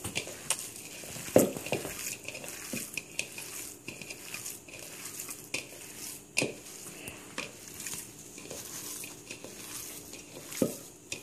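Hands squeezing and mixing raw ground chicken with grated cheese and seasonings in a bowl, with occasional sharp clicks of hand against bowl.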